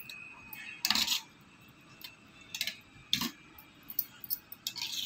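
A metal spoon stirring thick yogurt raita in a steel bowl, clinking and scraping against the bowl a handful of times at uneven intervals, the loudest clink about a second in.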